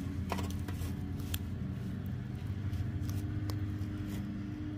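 A steady low motor-like hum with a held tone, starting abruptly, with scattered light clicks over it.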